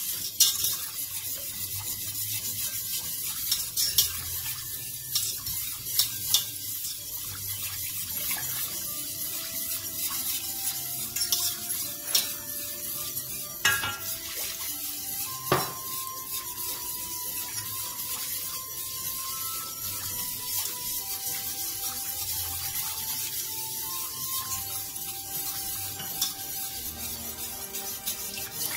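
A spoon stirring béchamel sauce in a stainless steel pot, with a steady scraping hiss and several sharp clinks as the spoon knocks against the pot, about six in all, mostly in the first half.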